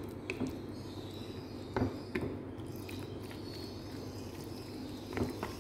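A few soft clicks and knocks of a utensil against a baking dish of pasta, over a steady low background hum.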